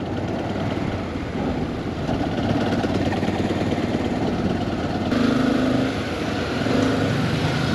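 Honda motorcycle's engine running at low speed in town traffic, mixed with wind and road noise. The sound changes abruptly about five seconds in.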